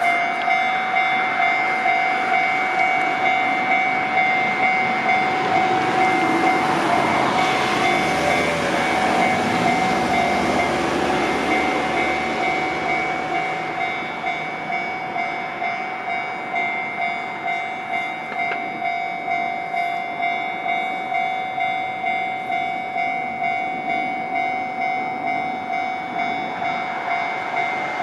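Japanese level-crossing warning bell ringing steadily, an electronic ding about once a second. An electric train passes through the crossing about six to thirteen seconds in, its rumble rising and then fading under the bell.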